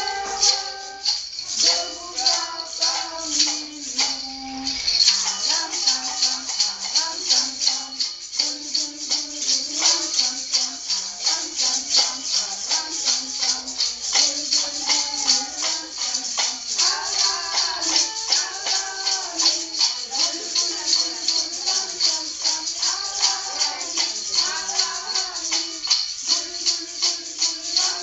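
Maracas shaken in a steady, even beat, with a voice singing a simple tune over them.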